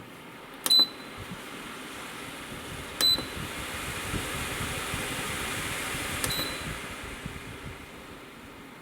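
Desiccant wheel dehumidifier's control panel beeping three times as its fan-speed button is pressed, with the fan's steady rush of air. The airflow grows louder after the second beep and eases off after the third as the fan steps between its low, middle and high settings.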